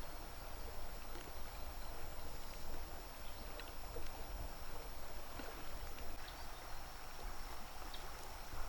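Outdoor water sounds: gentle lapping with small splashes and clicks over a steady low rumble, and a faint steady high-pitched tone throughout.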